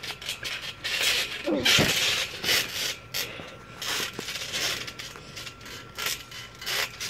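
Feet and bodies scuffing and rubbing on a trampoline's jump mat in a string of irregular rasping sweeps, with a brief voice sound about one and a half seconds in.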